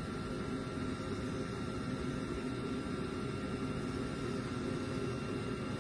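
EOGB Sapphire oil-fired boiler's burner fan running steadily with a faint hum while the boiler waits to fire, before the burner lights.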